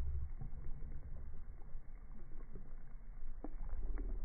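Low, uneven rumble of wind buffeting the phone's microphone, with small water splashes against the shore rocks.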